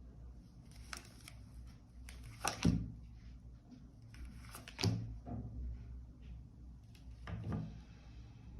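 A few soft taps and rustles, several seconds apart, of tarot cards being handled and laid on a table, over a low room hum.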